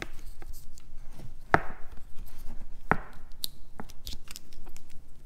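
Small plastic clicks and knocks from fingers working at a motorcycle taillight wiring connector, trying to release its locking clip and pull it apart. There are two sharper knocks, about a second and a half and three seconds in.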